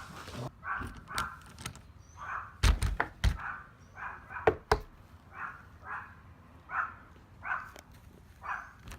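Yorkshire terriers barking repeatedly, a bark about every second, with a few sharp knocks and thuds in the middle of the barking.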